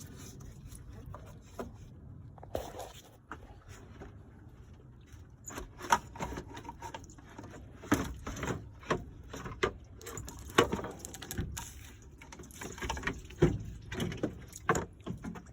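Irregular knocks and clatters of a BMW 328i's plastic-tanked radiator being worked loose and lifted out of the engine bay. The knocks are sparse at first and come thick and fast from about six seconds in.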